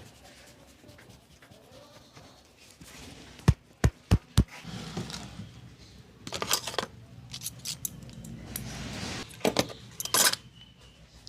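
Sharp strikes from a barber's head massage: four loud cracks or slaps in quick succession, then quicker clusters of patting and slapping, with the loudest pair near the end.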